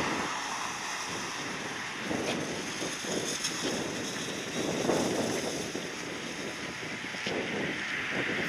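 Strong gusty wind rumbling on the microphone, surging and easing every second or two, over a steady hiss of jet engine noise from an airliner on the ground.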